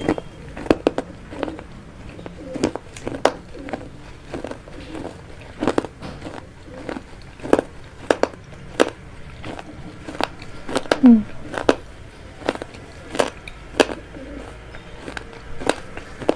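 Close-miked chewing of vegetable chow mein: irregular wet mouth clicks and smacks, one to three a second. About eleven seconds in there is a brief rising vocal sound from the eater.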